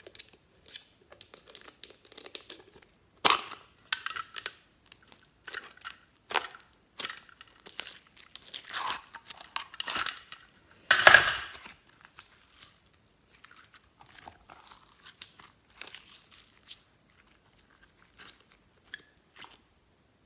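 Hard plastic pumpkin-shaped container being opened and pulled apart by hand, and thick slime peeled out of it into a glass bowl: plastic clicks and knocks with sticky tearing and crackling. A sharp snap comes about three seconds in and the loudest crackle about eleven seconds in, with softer handling sounds after.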